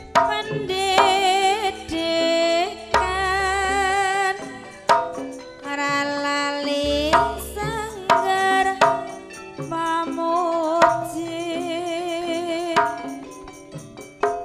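Javanese gamelan playing tayub dance music. A female singer (sinden) holds long notes with heavy vibrato over sharp hand-drum strokes.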